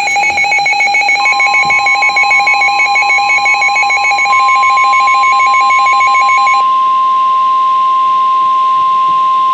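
Emergency alert tones: a rapidly pulsing, warbling electronic alarm, joined about a second in by a steady single-pitch weather-radio warning alarm tone. The warbling stops a little past halfway and the steady tone holds on alone, the attention signal that comes before a warning message.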